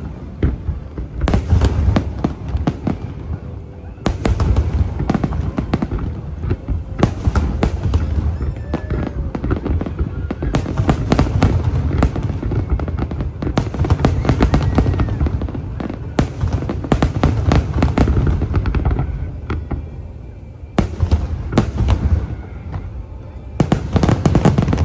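Aerial fireworks display: a dense, continuous run of booming shell bursts and crackling reports over a low rumble, with brief lulls between salvos.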